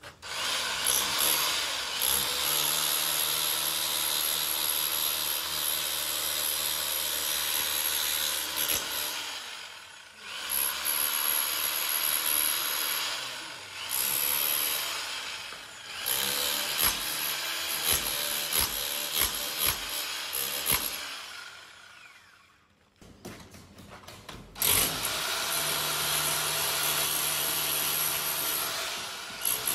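Electric rotary hammer with a chisel bit chipping old plaster off a masonry wall. It runs in long bursts with brief stops, a run of quick stop-starts past the halfway mark, and a pause of a couple of seconds about three quarters of the way through before it starts again.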